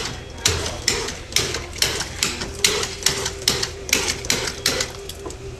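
Soda fountain dispensing in short spurts as its levers are pressed one after another: a quick run of brief fizzing gushes, about two a second, over a steady machine hum.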